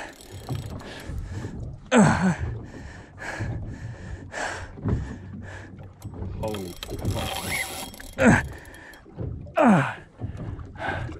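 A man straining against a heavy fish on rod and reel: repeated grunts and gasping breaths of effort, with the mechanical whirr and clicking of the spinning reel as he winds.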